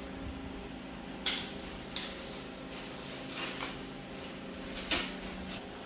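Scattered clicks and knocks of hard parts being handled while searching for the TV stand's screws, about five over a few seconds, over a steady low hum.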